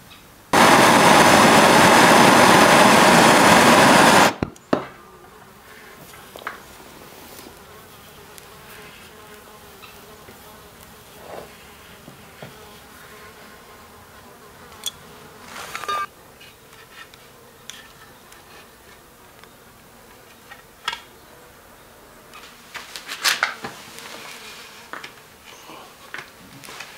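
A loud, steady hiss lasting about four seconds that cuts off abruptly, followed by light scattered clicks and taps of hand-tool work on wood.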